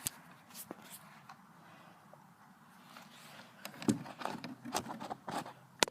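Handling noise from an airsoft sniper rifle: a few faint clicks, then from about four seconds in a run of short clicks and rattles, ending in one sharper click.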